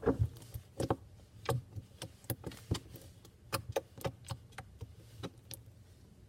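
Slime being squished and worked in the hands, giving a string of sharp, irregular clicks and pops that die away near the end.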